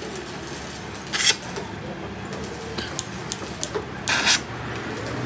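Oxy-fuel cutting torch at work on a steel plate: a steady hiss, with two short, louder rushes of noise about a second in and about four seconds in, and a few small clicks between them.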